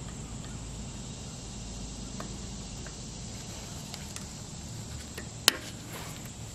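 Snap ring pliers working a snap ring out of a front locking hub: a few faint metal clicks, then one sharp click near the end. A faint steady insect drone runs underneath.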